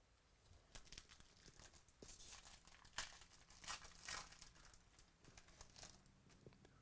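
A foil trading-card pack wrapper being torn open and crinkled in the hands, in a run of quick crackly rips and rustles.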